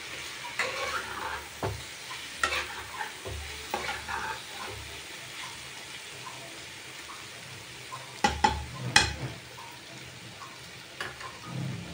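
Spatula stirring and scraping dry-cooked spiced potatoes in a frying pan, with a light sizzle underneath. Two louder knocks come about eight and nine seconds in.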